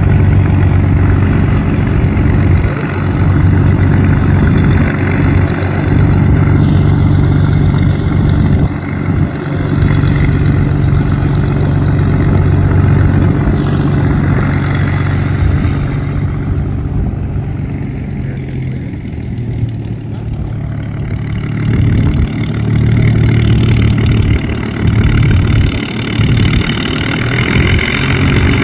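Piston aircraft engine running at low power, a steady low drone that eases off for a few seconds past the middle and then picks up again.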